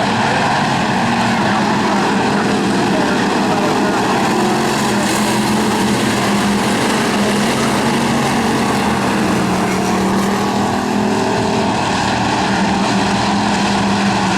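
Bomber-class stock cars racing on a dirt oval: several engines running together in a loud, steady drone, their pitches drifting up and down as the cars go by.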